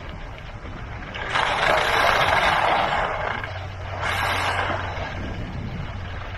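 Skis scraping over packed snow in two long hisses, the first about a second in and the second about four seconds in, over a low rumble of wind on the microphone. A low steady hum comes in near the end.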